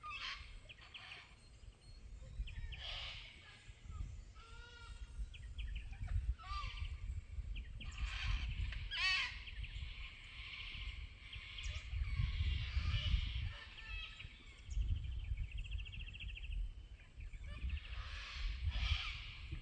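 Several bush birds calling: scattered chirps, short whistles and a few rapid trills, some calls repeated in quick runs, over a low fluctuating rumble.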